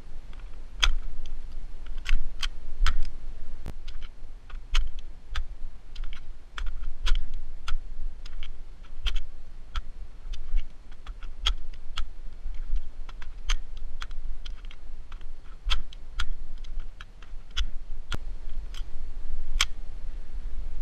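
Rapid, irregular plastic clicks and clacks of magazines being seated, pulled and turned in an airsoft M4 replica fitted with a star-shaped multi-magazine cluster, with a low rumble underneath.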